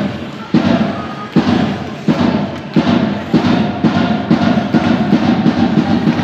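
A steady drumbeat, about three beats every two seconds, each hit dying away in the hall, with quicker, lighter beats filling in over the second half.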